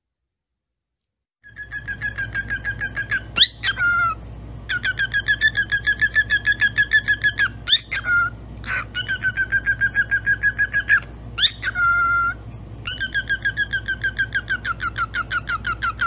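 Cockatiel chirping in fast runs of repeated notes, about seven a second, broken by a few quick rising whistles. It starts about a second and a half in, over a low steady hum.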